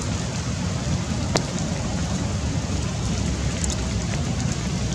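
Steady rain falling on foliage and the forest floor, with a few sharp ticks of single drops.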